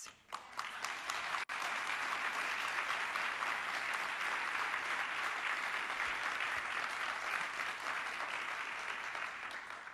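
Audience applauding steadily for several seconds, easing off slightly near the end.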